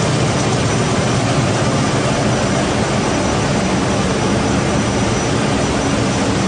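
Diaper-making production machine running: a steady, even machine noise with a low hum underneath, unchanging throughout.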